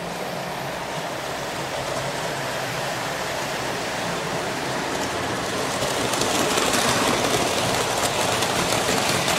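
A 00 gauge model steam tank locomotive running along the track with a wagon: the electric motor's steady hum and the wheels rolling on the rails, growing louder in the second half.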